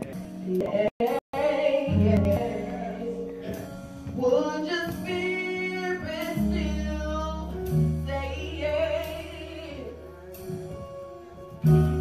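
Gospel worship song: a woman sings lead into a microphone with a wavering vibrato, over band accompaniment with sustained low bass notes. The sound cuts out briefly twice about a second in.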